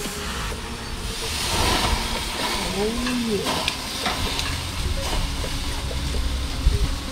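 Raw quail sizzling on a hot gas grill as they are laid on the grates with metal tongs. A few light clicks of the tongs against the grate sound through the sizzle.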